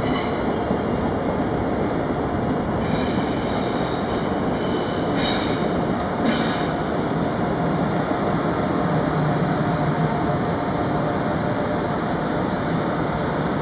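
Double-deck passenger train with an NS class 1700 electric locomotive rolling past on the station tracks, a steady rumble of wheels on rail. High wheel squeal comes in several short bursts in the first half, then stops while the rumble goes on.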